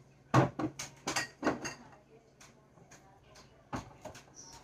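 Groceries being put away: a quick run of sharp knocks and clunks as items are set down on shelves, about five in the first two seconds and two more near the end.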